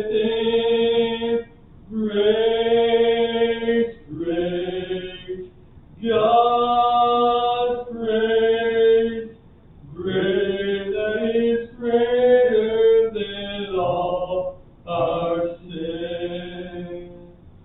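Slow hymn singing in long held notes, phrased in lines of one to two seconds with short breaks between them.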